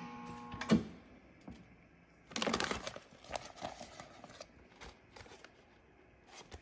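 Plastic vacuum-seal bag crinkling as it is handled: a short rustle a little under a second in, a louder one between two and three seconds in, then a few faint ticks.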